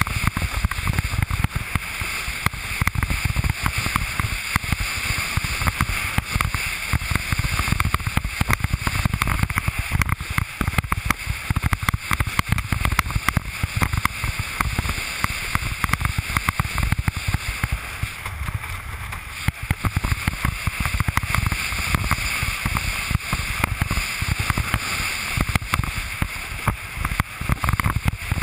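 Windsurf board planing fast over choppy water: a steady rush and hiss of water and spray under the hull, with wind buffeting the camera microphone in constant rapid gusts.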